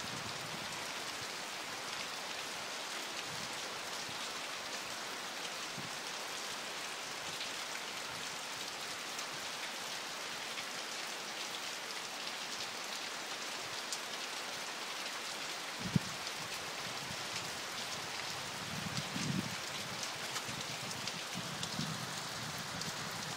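Steady rain falling on a river and its bank, an even hiss of many drops. A single sharp click stands out about two-thirds of the way through, and a few soft low bumps come near the end.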